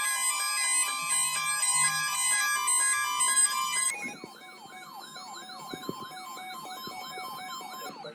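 Electronic alert tones from a broadcast emergency warning: a quick melody of stepping electronic tones, then about four seconds in a fast electronic siren yelp, about three rising-and-falling sweeps a second, which cuts off abruptly near the end.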